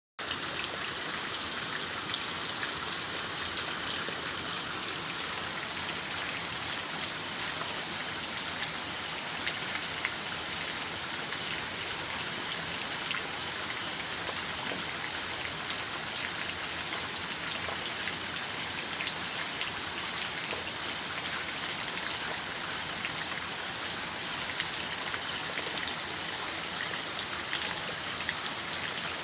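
Steady rain falling, an even hiss scattered with many small drop ticks.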